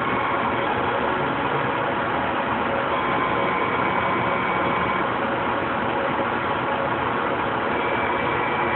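Laser cutter running with a steady mechanical whooshing hum, with a faint high whine that comes and goes.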